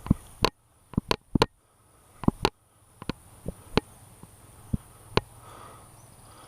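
Airsoft guns firing: about a dozen sharp cracks at irregular intervals, some in quick pairs, some loud and some fainter.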